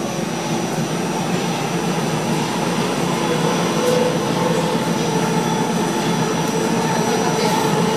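Interior running noise of an NFTA Metro Rail light rail car in motion between stations: a steady rumble with a faint, steady high whine on top.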